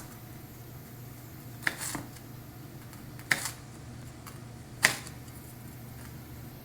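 Kitchen knife striking a cutting board four times, sharp separate knocks a second or more apart, as vegetables are cut into small pieces.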